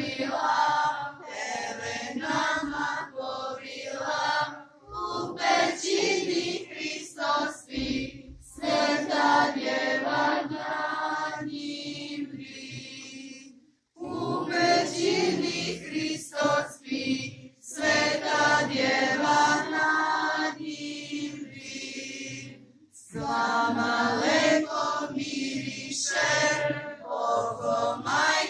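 A group of children and women singing a Christmas song together in sung phrases, with a very short break about halfway through.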